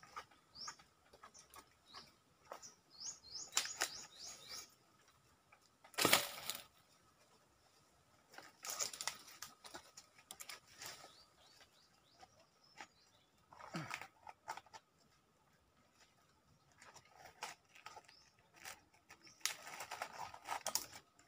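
Leafy tamarind branches rustling and shaking in irregular bursts as someone climbs through the tree, the loudest burst about six seconds in. A few short, high, falling bird chirps come in the first few seconds.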